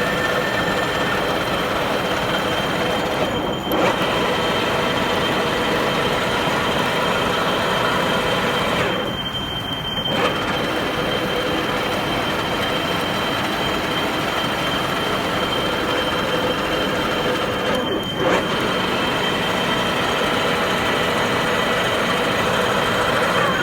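16K20 screw-cutting lathe running during thread cutting: a steady mechanical drone with whining gear tones. The sound briefly dips and changes at a few points, roughly every five to nine seconds.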